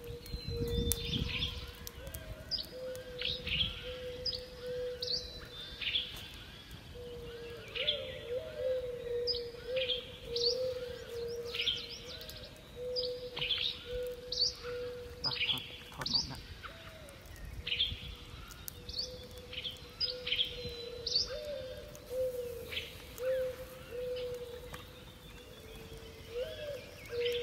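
Wild birds calling: short, high chirps that drop in pitch, repeating about once a second, over a steady low tone. A couple of dull low thumps come near the start and about halfway through.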